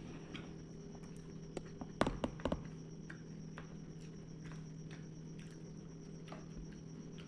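Eating sounds: scattered small clicks, with a quick cluster of four or five sharper knocks about two seconds in, over a steady low hum.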